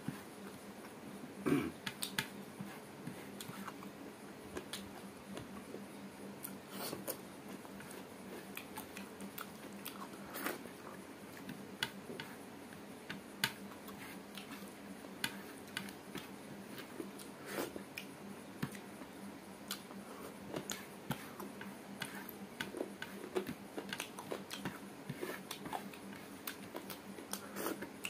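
Close-up hand-eating sounds: scattered small wet clicks and smacks of chewing, along with fingers scraping rice off a plate, over a faint steady hum.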